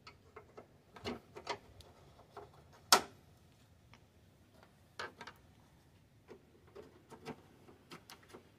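Scattered light clicks and knocks of hands handling a newly fitted headlight assembly and its wiring, with one sharp click about three seconds in.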